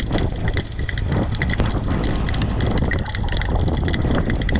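Steady rumble of wind on the microphone over surf, with light ticking from a spinning fishing reel being cranked.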